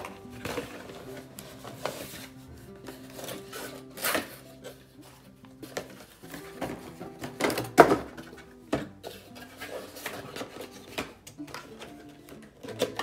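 Background music with a soft melody, over the knocks and scrapes of a cardboard figurine box being handled and opened. The loudest knock comes a little before eight seconds in.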